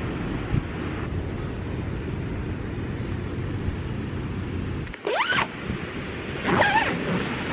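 Steady rush of wind and sea surf, then a tent door zipper pulled twice in quick strokes, the first rising in pitch, about five and six and a half seconds in.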